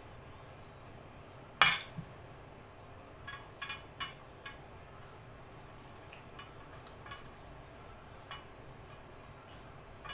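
A small white bowl set down with one sharp, ringing clink about one and a half seconds in, then a softer knock. A run of lighter clicks and taps follows as rice is mixed by hand on a plate, where rings on the fingers can tap the dish.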